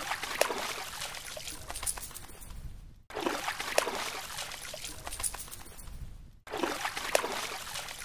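A wet dog shaking water off its coat after a swim: a rushing spray of water droplets, heard three times in a row, each starting suddenly and tapering off.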